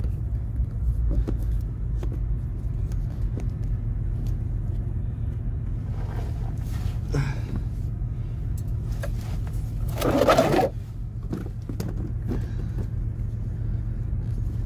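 Steady low hum of an idling engine. About ten seconds in comes a brief, loud rustling scrape.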